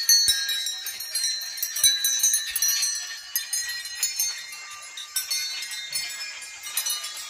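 Many hanging temple bells struck one after another by people walking past, their high ringing tones overlapping and lingering, with fresh strikes throughout. The ringing is densest and loudest in the first few seconds and thins out toward the end.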